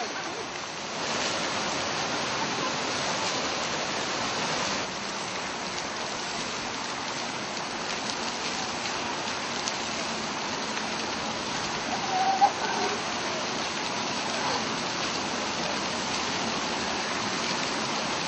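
Steady water noise of a zoo pool with a sea lion pup swimming in it, a little louder for a few seconds near the start. A brief pitched call stands out about two-thirds of the way through.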